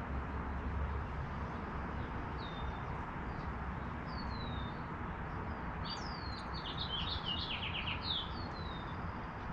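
Small songbirds chirping: a few short falling whistled notes, then a run of quick chirps about six to eight seconds in, over a steady low background rumble.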